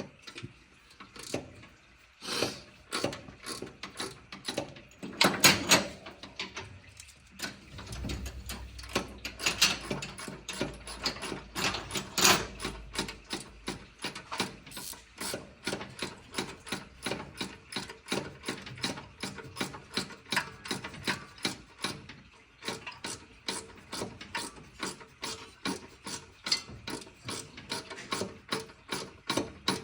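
Hand ratchet wrench clicking in quick, evenly spaced runs of strokes, with a few louder metal knocks, as the bolts holding the engine fan are loosened.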